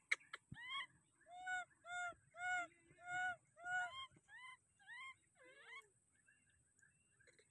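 A baby monkey crying out in distress, a run of about nine short high calls that each rise and fall in pitch, coming about every half second and stopping about 6 seconds in, the last one sliding lower.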